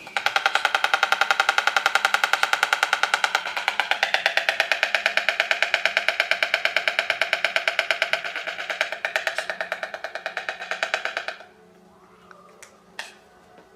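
A pair of white storks bill-clattering in duet: a long, rapid wooden rattle that stops about eleven seconds in, followed by a couple of single clacks near the end.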